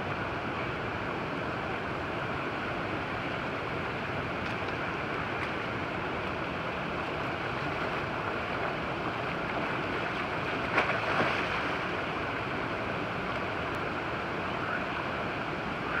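Steady rush of river water spilling over rocks into a pool in small cascades, with one short louder sound about eleven seconds in.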